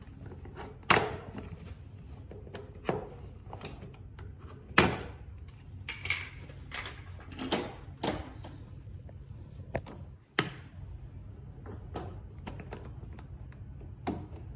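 Irregular clicks and knocks of tools and small parts being handled during a motor replacement, over a steady low hum. The loudest knocks come about a second in and just before five seconds in.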